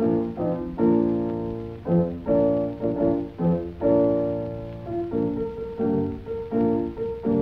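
Background piano music: a series of chords, each struck and then fading away.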